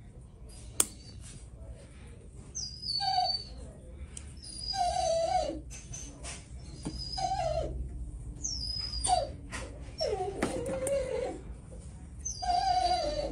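An animal whimpering: short whining calls about every two seconds, each sliding down in pitch. There is a sharp click about a second in.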